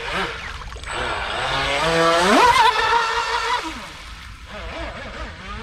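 Electric motor of a homemade RC V-hull speedboat whining at full throttle. Its pitch climbs steeply about two seconds in, holds high for about a second, then falls away as the throttle comes off.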